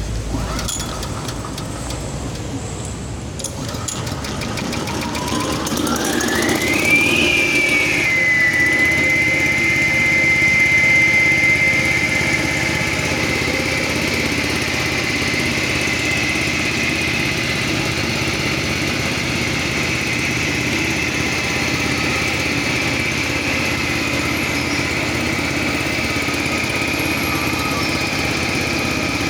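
Petrol engine of a walk-behind concrete/asphalt cutting saw with a 16-inch blade, the 6 HP Mitsubishi, running. About five seconds in it is throttled up, and a whine rises in pitch and settles into a steady high whine as the engine and belt-driven blade run at full speed.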